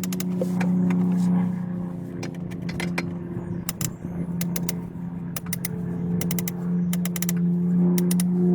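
Flathead screwdriver working at a plastic radiator drain plug, a run of irregular sharp clicks and taps over a steady low hum.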